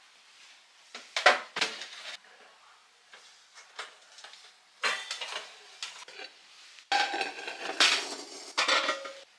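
Metal cooking pots and pans clanking and scraping as they are set down and slid onto wooden slatted shelves, in separate bursts about a second in and around five seconds in, then a longer, louder run of clatter with some metallic ringing near the end.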